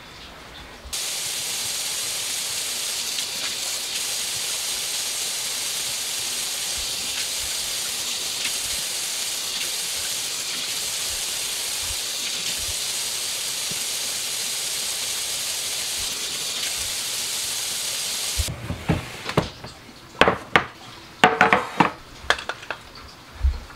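Kitchen faucet running into the sink: a steady hiss that starts suddenly about a second in and stops suddenly near the end. Then come several sharp knocks and clatter as items are set down on the counter.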